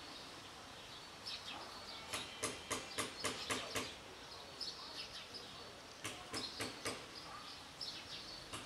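Birds chirping faintly in the background, with two runs of sharp, quick ticks at about four a second: one a couple of seconds in and another around six seconds in.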